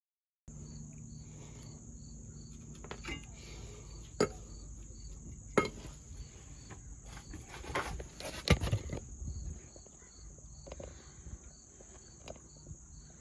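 A handful of sharp knocks and clanks, four of them standing out and the loudest a little past the middle, over a steady high insect drone with regular chirping, typical of crickets or katydids.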